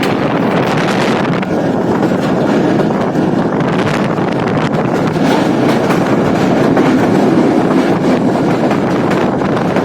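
Akbar Express passenger train running, heard from on board as a loud steady rumble with faint rail clicks, with wind buffeting the microphone.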